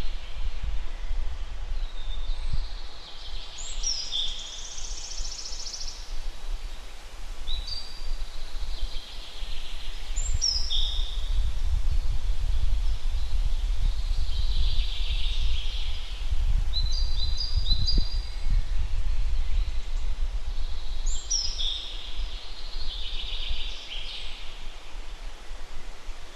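A songbird singing short phrases of high, quickly descending notes, repeated every few seconds, over a steady low rumble.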